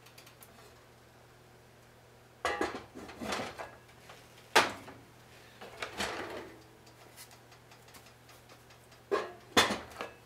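A heavy Lodge cast iron lid being handled on a cast iron skillet, clanking and scraping against the pan rim in several knocks, with two sharp clanks, about four and a half seconds in and near the end.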